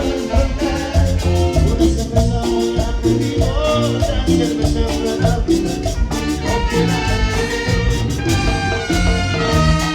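Band playing an instrumental passage of a Latin dance song, with a steady beat under sustained melodic lines.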